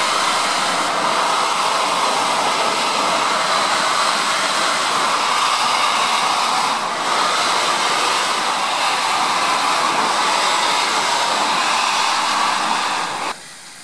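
Steam locomotive venting steam: a loud, steady hiss that holds for about thirteen seconds and then cuts off suddenly.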